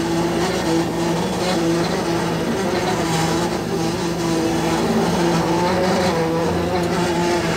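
Fishing boat's engine and hydraulic deck machinery running with a steady, even drone while the seine net is hauled in.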